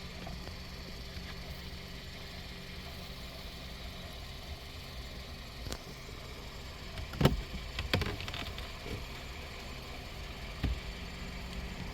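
A steady low motor hum, with a few sharp clicks and knocks from pliers and hands pulling nesting debris out of a car's cabin air filter housing.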